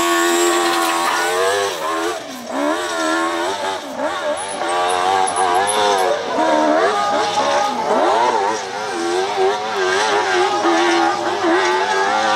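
Open-class (700cc and up) hillclimb motorcycle engine revving hard as the bike climbs a steep dirt hill, its pitch rising and falling over and over with the throttle.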